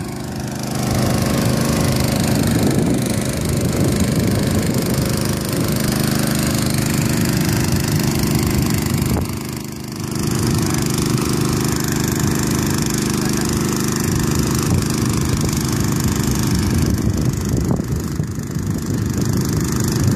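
Small engine of a portable water pump running steadily at constant speed under load, pumping water through hoses. It drops briefly in level about halfway through.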